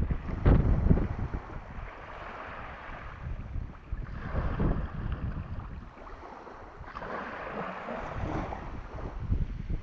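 Sea waves washing in, swelling twice, with wind buffeting the microphone in low rumbling gusts.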